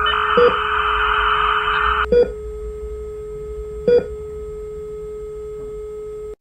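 A mix of electronic signal sounds: a steady tone with three short beeps about 1.7 seconds apart, like a hospital heart monitor, over a hiss of static that cuts off suddenly about two seconds in.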